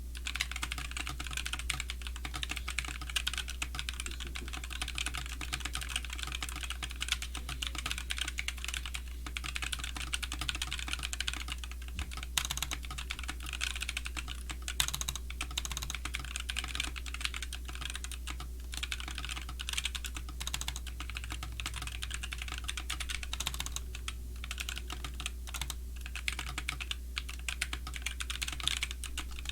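Fast typing on a GK61 mechanical keyboard with Gateron optical silver linear switches: a dense, uneven run of key clacks with a few brief pauses.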